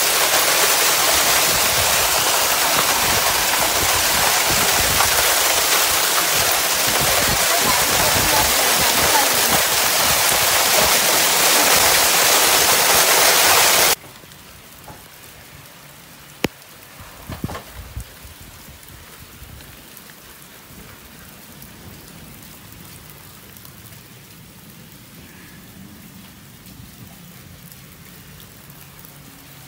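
Hail and rain pelting down hard, a loud dense hiss. About halfway through it cuts off abruptly to a much quieter hush with a few faint taps.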